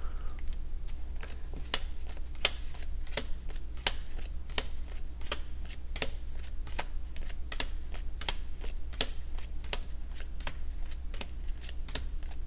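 Clue Rivals Edition playing cards dealt one at a time onto a table: a steady run of light, sharp clicks, about three a second.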